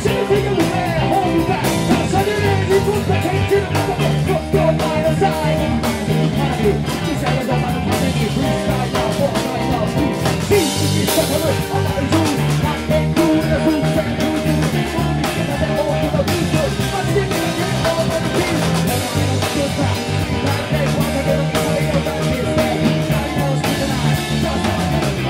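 Live rock band playing a song: drum kit and electric guitar with a steady beat, and a singing voice.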